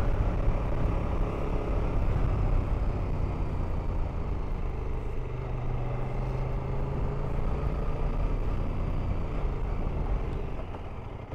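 KTM adventure motorcycle riding at a steady pace: an even engine drone under wind and road noise.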